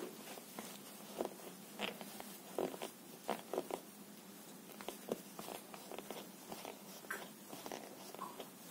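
Light, irregular clicks, scratches and rustles of a crochet hook and thread being worked over a paper pattern during crocheting, faint throughout.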